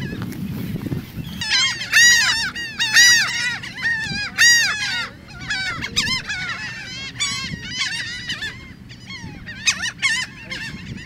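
Laughing gulls of a nesting colony calling, overlapping runs of short arching notes, starting about a second and a half in and thinning out near the end.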